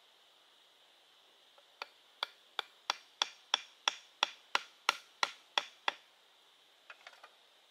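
Chopping with a blade: about a dozen quick, evenly spaced strokes, roughly three a second, getting louder over the first few, then a few light taps near the end.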